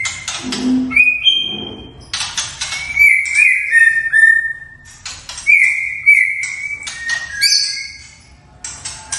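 White-rumped shama (murai batu) singing: clear whistled phrases alternating with harsh, scratchy notes, with a brief pause near the end.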